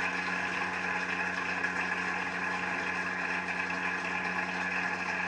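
Studio audience applauding steadily, heard through a television's speaker, with a low steady hum underneath.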